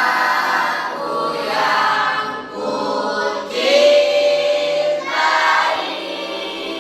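A choir of mixed young voices singing in unison, with held notes between phrases.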